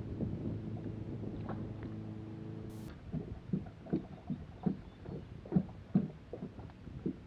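A bass boat's electric motor hums steadily, then cuts off with a click about three seconds in. After that, small waves slap against the hull in irregular knocks, roughly two a second.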